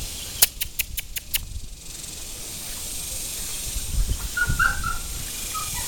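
Outdoor ambience with a steady high hiss. About half a second in there is a quick run of five sharp clicks, roughly four a second. Near the end come low bumps and a faint short squeak or two from playing puppies.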